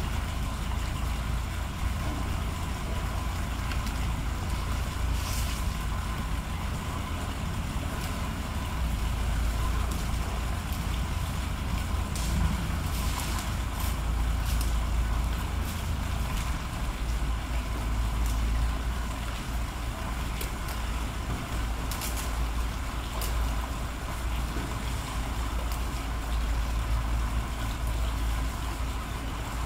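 Steady low outdoor rumble that swells and eases, with a few faint clicks scattered through it.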